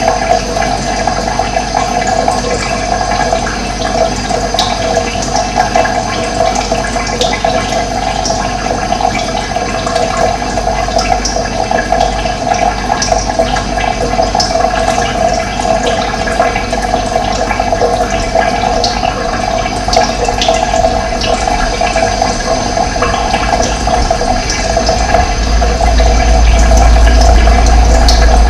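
Running water flowing steadily, with a deep low rumble that grows louder near the end.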